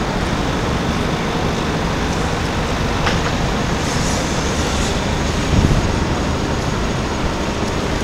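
Steady outdoor background noise with a low rumble, and a brief low thump about five and a half seconds in.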